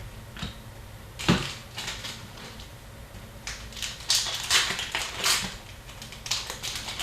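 Crinkling and rustling of hockey card packs and cards being handled and torn open, in a run of short crackles: one loud one about a second in and a cluster of them towards the middle and end.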